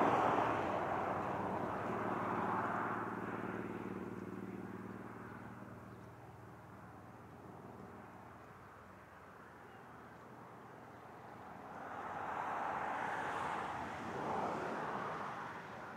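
South Australian Railways Brill railcar running as it draws away, its steady engine hum fading over the first several seconds. Near the end a rushing noise swells and falls twice.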